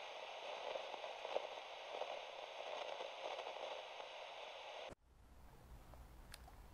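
A steady rushing hiss that cuts off abruptly about five seconds in. It gives way to a quieter low rumble with a single click near the end.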